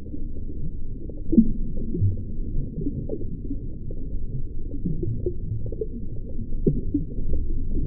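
Muffled underwater ambience: a low rumble under many short gliding tones that rise and fall, with nothing above the low range.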